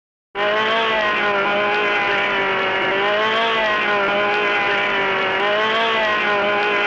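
Old cartoon sound effect: a steady, buzzy, engine-like drone whose pitch wavers slightly up and down. It starts abruptly and stops abruptly, lasting about seven seconds.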